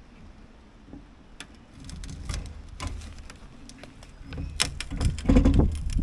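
Metal clanks and scrapes from a long bar levering the old Ford 555 backhoe's steel cab door on its hinges, with low thumps as the door frame shifts. The knocking gets louder and heavier near the end.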